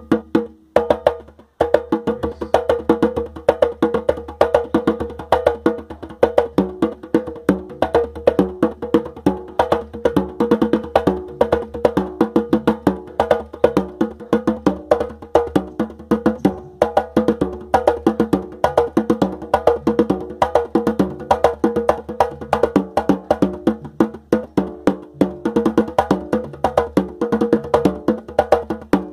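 Batuque, a newly devised percussion instrument, played in a fast, unbroken run of knocking strokes with pitched tones ringing through them. A few separate hits come first, then steady playing from about a second and a half in.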